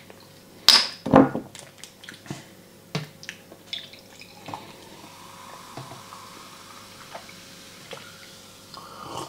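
A plastic bottle of carbonated cola is twisted open with two short loud hisses about a second in. The cola is then poured into a drinking glass, with faint fizzing and small clinks.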